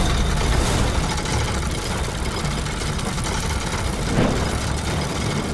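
Heavy mechanical rumbling of large metal gears turning in a giant machine, with a brief rushing swell about four seconds in.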